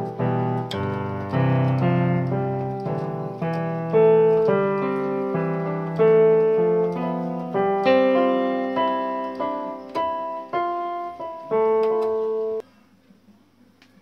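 Yamaha PSR-E353 portable keyboard played by hand, chords and a melody of struck, decaying notes, its sound output working again now that the failed digital-to-analog converter IC has been replaced. The playing stops suddenly about a second before the end.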